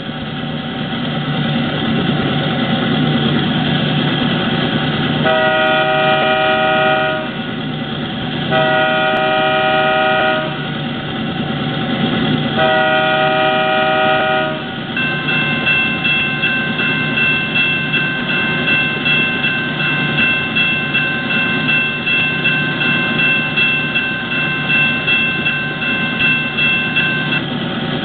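Sound decoder in a Walthers HO-scale EMD GP9M model locomotive playing a diesel engine running steadily. Three horn blasts of about two seconds each sound from about five seconds in. The locomotive bell then rings steadily for about twelve seconds.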